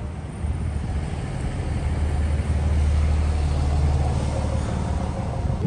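Low rumble of a passing motor vehicle, its engine hum building toward the middle and easing slightly near the end.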